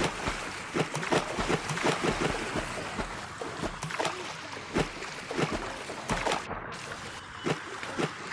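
Water splashing and sloshing, with many irregular sharp splashes over a steady watery rush.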